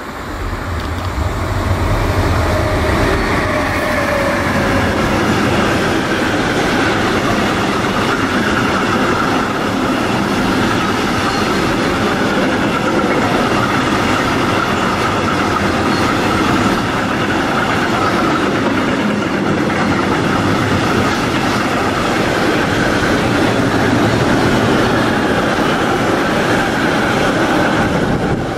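Freight train of double-deck car-transporter wagons, hauled by an electric locomotive, passing close by: a loud, steady rolling noise of steel wheels on rails that swells in the first second or two as the locomotive comes level.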